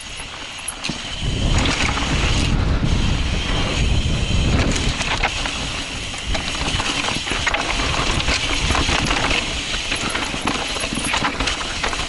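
Mountain bike riding down a rough dirt and rock trail: the bike and tyres clatter and rattle with many small knocks over the bumps, over a steady rumble of wind on the microphone that is heaviest in the first few seconds.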